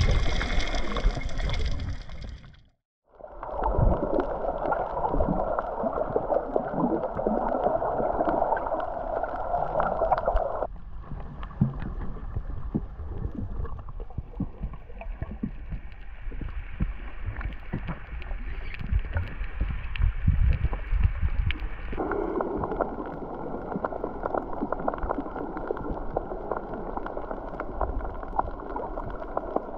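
Underwater sound recorded by a camera in its waterproof housing: a muffled rush and gurgle of water with a steady crackle of small clicks. It drops out briefly about three seconds in and changes tone abruptly twice more as the shots change.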